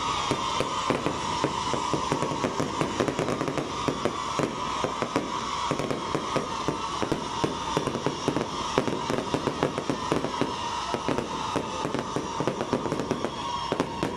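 Aerial fireworks bursting overhead in a rapid, dense run of crackles and pops, many reports packed close together, with a steady high tone running underneath.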